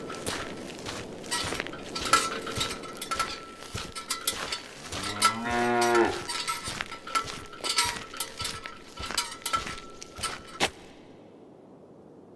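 A cow moos once, about halfway through, over repeated metallic clanking and a thin steady high tone. The sounds cut off suddenly near the end, leaving only faint hiss.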